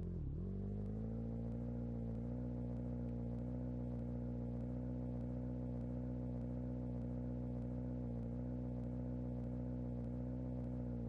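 An engine running at a steady idle, a low even hum. Its pitch dips briefly just after the start and recovers within about a second.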